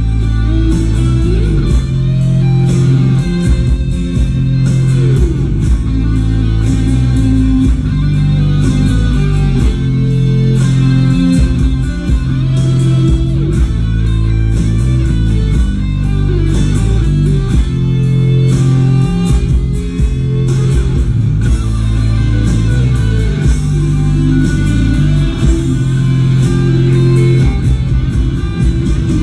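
Background music: rock music with guitar and bass and a steady beat.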